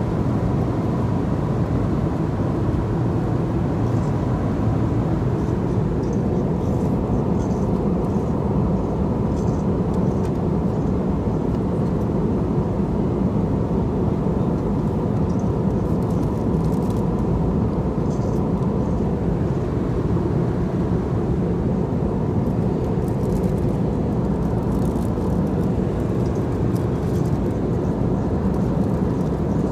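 Airliner cabin noise in flight: a steady low rush of engine and airflow noise with a faint steady tone above it.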